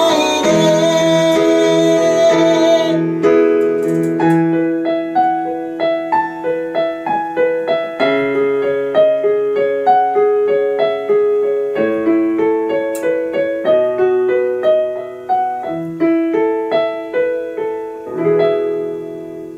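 A fuller song arrangement ends about three seconds in, leaving a solo piano playing a slow outro of single notes and chords, one after another, closing on a held chord near the end.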